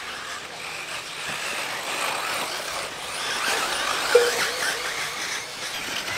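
Electric RC buggies racing on a dirt track: motors whining with wavering pitch over the rush of tyres on dirt, with a brief tone standing out about four seconds in.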